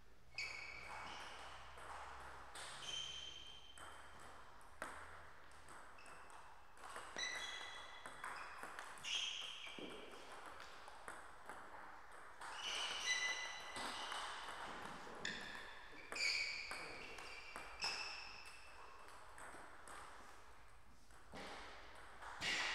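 Table tennis ball being hit back and forth in rallies, clicking off the bats and bouncing on the Tibhar table. The hits come in quick runs a fraction of a second apart, each with a short high-pitched ping.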